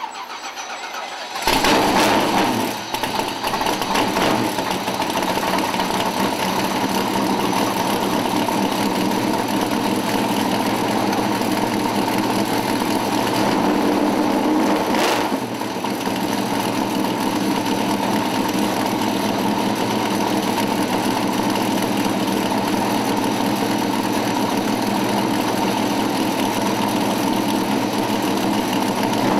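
USAR Pro Cup stock car's V8 engine firing up about a second and a half in, then idling loud and steady.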